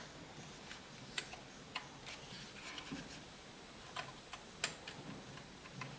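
A few sharp, irregularly spaced plastic clicks and taps from handling a USB Wi-Fi hotspot modem dongle at a set-top box's USB port.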